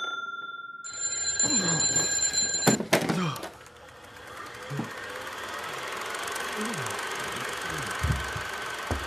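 Two bell-like chime rings: one is already ringing out at the start and a second sounds about a second in, and both fade by about three seconds. After that comes a steady hum with a few soft falling swooshes.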